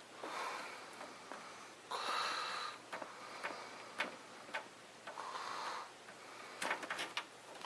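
A person breathing audibly close to the microphone, several breaths in and out. Between them come scattered small clicks and knocks of computer hardware being handled, with a cluster near the end.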